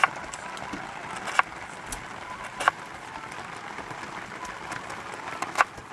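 Four sharp knocks, like hard strikes, at uneven gaps of one to three seconds, each ringing briefly, over a steady background hiss.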